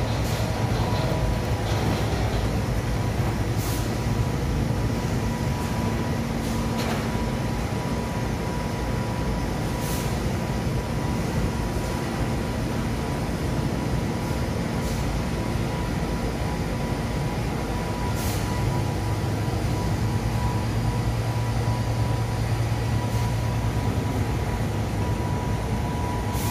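Automatic glove-washing line running: its conveyor and machinery make a steady mechanical hum. A few brief sharp noises cut through it, the clearest about ten and eighteen seconds in.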